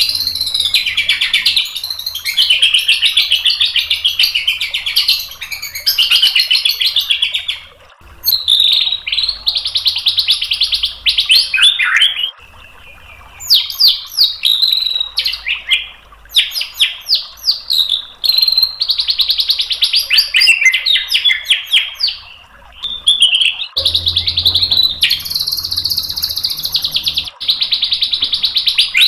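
White-rumped shama (murai batu) singing a long, varied song: runs of fast rattling trills and sweeping whistled notes lasting several seconds each, separated by brief pauses.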